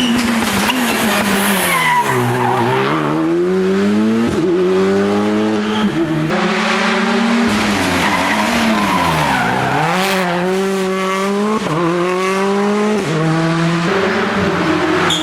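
Rally car engine running hard, its pitch dipping twice, about two and nine seconds in, as it slows and then climbing again as it accelerates, with several sharp steps in pitch at the gear changes.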